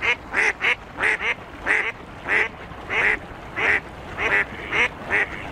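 Duck quacking over and over, about two quacks a second.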